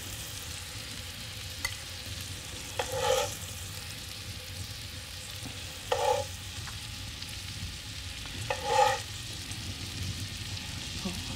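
Herring fillets sizzling faintly in a hot frying pan as they are lifted out onto a plate, with three short louder scrapes of the knife and fillets against the pan, about three, six and nine seconds in.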